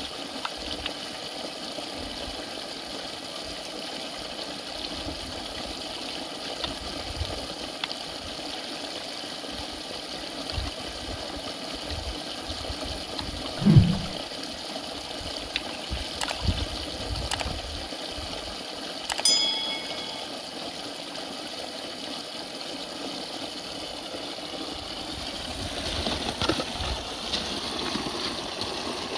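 Steady rush of flowing water, with a brief low thud about halfway through and a short ringing metallic clink a few seconds later.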